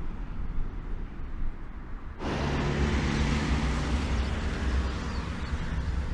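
A low rumble, then, about two seconds in, a Mercedes Sprinter 316 CDI pickup's four-cylinder diesel engine and tyres as the truck drives past at steady speed.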